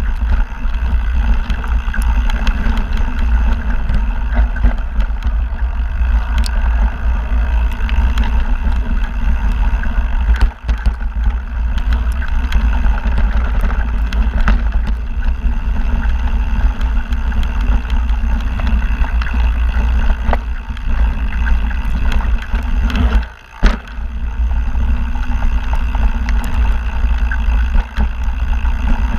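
Mountain bike riding fast down a dirt and rock singletrack, heard from a camera on the bike or rider: a steady low rumble of wind and tyre noise with rattling clicks from the bike, going quiet briefly twice.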